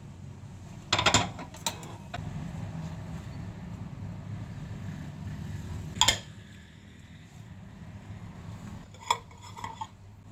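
Kitchenware clattering: metal utensils knock against dishes a few times, sharply about a second in, once loudly around six seconds and in a few light clinks near the end, over a steady low hum.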